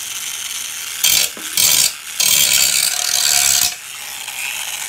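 Small Makita 7.2 V cordless tool's motor run in short trigger pulses: two brief bursts about a second in, then a longer run of about a second and a half that cuts off near the end.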